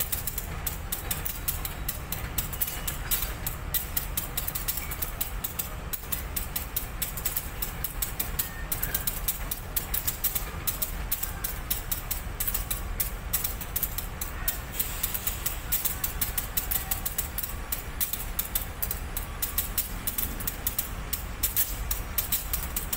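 Diesel-hauled Commuter Line Merak train moving slowly while shunting: a steady low rumble with a constant patter of small clicks.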